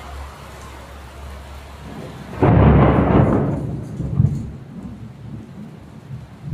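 Rain falling steadily, then a sudden loud thunderclap about two and a half seconds in that rumbles away over the next couple of seconds, with a second loud jolt in the rumble.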